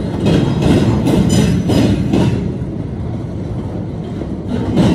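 Freight flatcar wheels rolling and clattering over a railroad diamond crossing. A quick run of clacks starts just after the start, it eases off into a steady rumble, and another run of clacks comes near the end as the next trucks cross.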